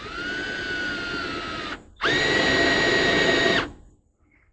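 Electric drill boring half-inch holes through deck boards, in two runs of nearly two seconds each. The first run's whine sags slightly in pitch under load; the second is higher, louder and steady.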